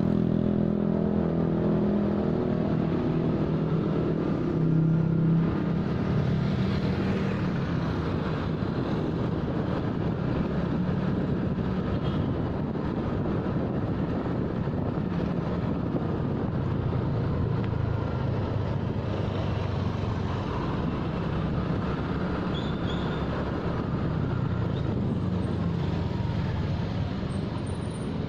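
Motorcycle engine running steadily as it is ridden, over a steady rushing noise.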